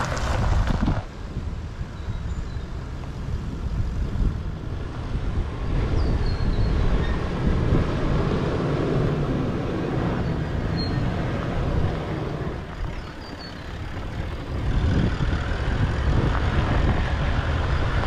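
Toyota LandCruiser 79 Series (VDJ79, 4.5-litre V8 turbo-diesel) driving over a bumpy four-wheel-drive track. The engine and tyres make a steady low rumble that eases for a couple of seconds about three-quarters of the way through.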